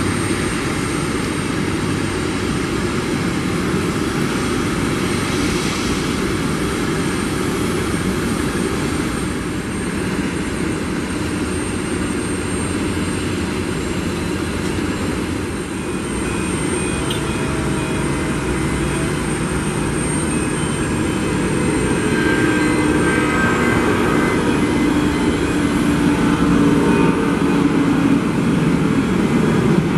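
Airbus A330-243F freighter's Rolls-Royce Trent 700 jet engines running during taxi and takeoff: a steady jet roar that gets louder over the last several seconds as it climbs out.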